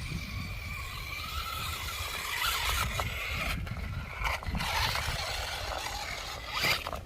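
Electric RC truck's motor and gearing whining, the pitch rising and falling with the throttle, with a few sharp knocks from the truck working over rough ground. Wind rumbles on the microphone throughout.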